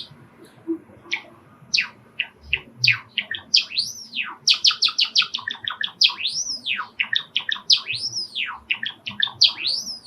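Male Java sparrow singing its song: a few sparse clicking notes that build into a fast run of short chirps, broken by several long whistles that rise and fall.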